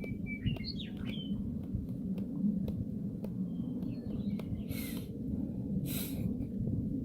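Small bird chirping in quick short notes that slide up and down, in two short bouts, over a steady low rumble. Two brief hissing swishes come near the end.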